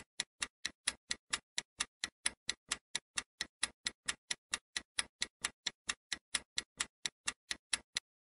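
Countdown-timer sound effect of a clock ticking, with evenly spaced sharp ticks at about four a second that stop just before the end.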